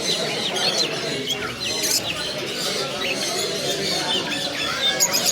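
Many small caged birds chirping and squawking at once, short overlapping calls, over a murmur of background chatter.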